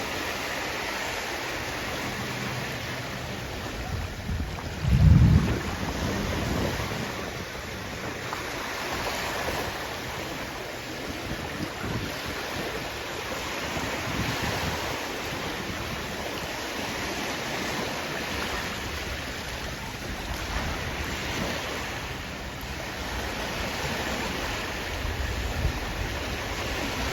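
Sea waves washing ashore in a steady rush of surf, with wind buffeting the microphone. A loud, low rumble about five seconds in.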